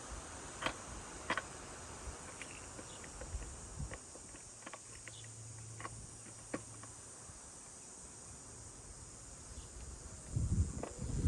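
Scattered faint clicks and light taps of handling work, with a brief low hum in the middle, then louder knocking and scraping starting about a second before the end.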